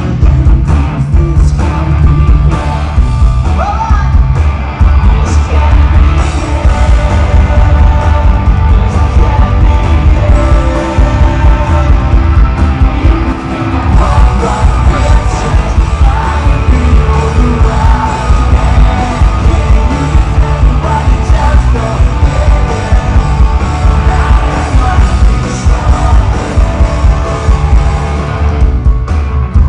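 Live piano-rock band playing loudly: electric guitar, bass, drums and piano under sung and shouted lead vocals, recorded from within the audience.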